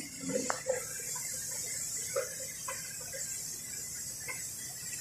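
Faint, scattered clicks and small knocks of hand tools or metal parts being handled during engine work, with a steady hiss.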